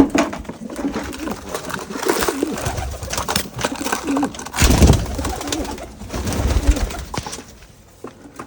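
Domestic pigeons cooing repeatedly, with two louder rustling bursts around the middle.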